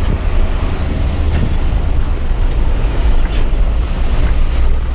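Isuzu Giga truck's diesel engine running as the truck drives, heard from inside the cab as a steady low drone with road noise and a few faint clicks.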